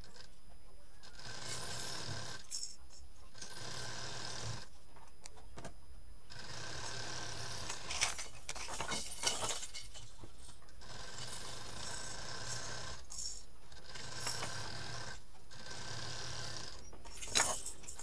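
Sewing machine stitching through quilted fabric in runs of one to two seconds, stopping briefly between runs, with a few sharp clicks.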